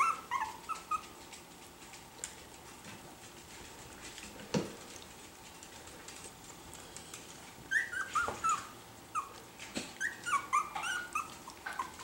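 Miniature schnauzer puppies giving short, high calls that fall in pitch while they wrestle in play. A quick burst comes at the start and a longer run of calls from about two-thirds of the way through, with a single soft thump in between.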